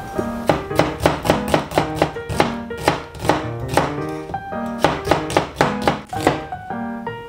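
Chef's knife slicing an onion on a cutting board: quick, even chopping strokes about four a second that stop near the end, over soft background music.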